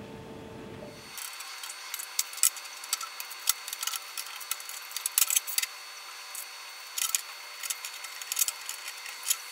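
Irregular sharp clicks and small metallic snips from wire cutters trimming and handling thin wire leads on a small speaker's solder tabs.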